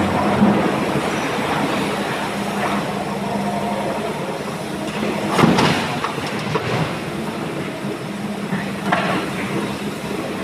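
Heavy tracked excavators' diesel engines and hydraulics running steadily while loading rock into a steel dump truck. There is a loud clank about five and a half seconds in and a smaller one near nine seconds.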